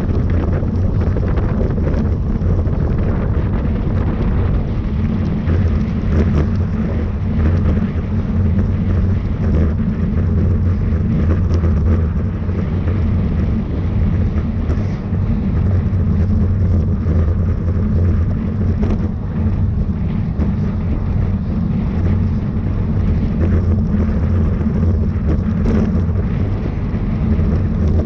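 Steady, loud wind rushing over a bike-mounted camera microphone at race speed, a constant low rumble with thinner hiss above it.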